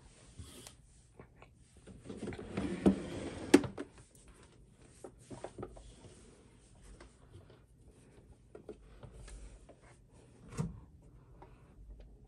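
Handling noises at a sewing machine: fabric rustling and scattered light knocks and clicks as the machine is moved and the fabric is set under the presser foot. The loudest stretch of rubbing, with a sharp click, comes about three seconds in, and another knock comes near the end.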